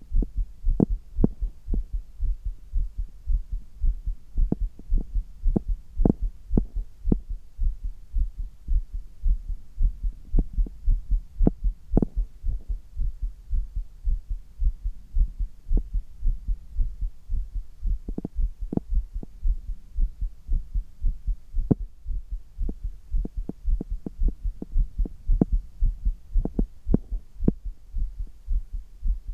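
A person's heartbeat picked up close against the chest: strong, regular lub-dub thumps, several a second, over a low steady hum. The heart is beating hard after handstand push-ups.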